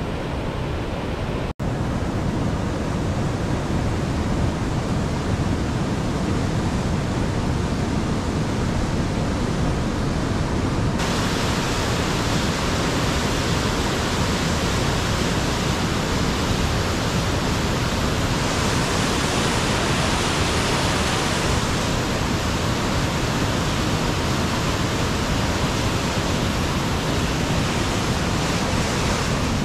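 Steady rush of a river flowing over rocks: an even, unbroken water noise. It drops out for an instant about a second and a half in and turns brighter and hissier about eleven seconds in.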